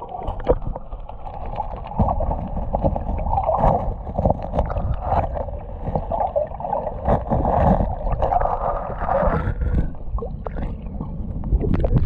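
Waterfall-fed river pool heard underwater: a muffled, steady churn of the falling water with scattered dull knocks throughout, and a louder rush near the end as the sound comes back up to the surface.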